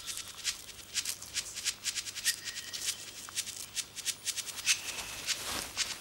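Dry, irregular clicking and crackling rustles, several a second: the sound laid on for ticks crawling through an albatross's feathers.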